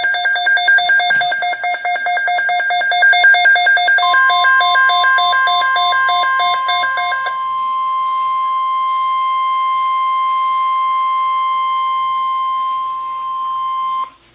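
Midland WR-100 weather radio sounding its alert for a severe thunderstorm watch: a loud, rapid pulsing beep for about seven seconds. About four seconds in, the steady single-pitch NOAA Weather Radio attention tone comes in; it carries on alone after the beeping stops and cuts off suddenly near the end.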